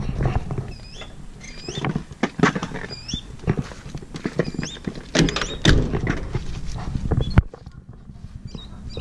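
Scattered knocks and thunks of hands on an enclosed cargo trailer's side door and latch, ending in one sharp click about seven seconds in. Birds chirp repeatedly in the background.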